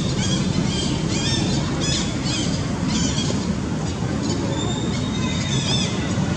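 Short, high chirps from a small bird, several a second at first and then thinning out, over a steady low rumble.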